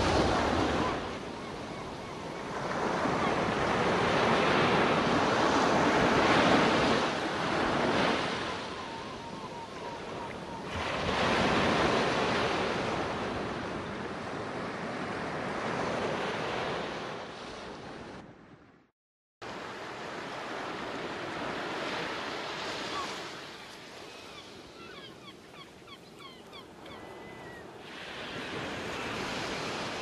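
Ocean surf, waves washing in and receding, swelling and fading every few seconds. The sound cuts out completely for about half a second about two-thirds of the way through, then resumes.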